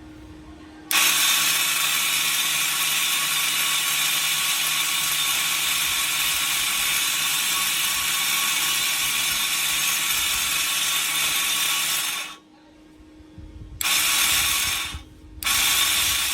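A small electric power tool running steadily for about eleven seconds with a loud grinding, gear-like whir, then cutting off; near the end it runs again in two short bursts.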